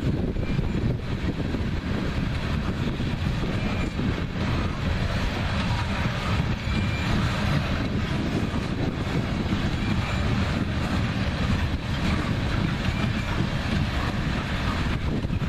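BNSF freight train's cars rolling past: a steady rumble of steel wheels on rail, with a few faint, brief squeals.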